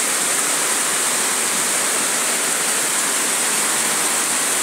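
Heavy rain pouring down, a loud, steady, even hiss.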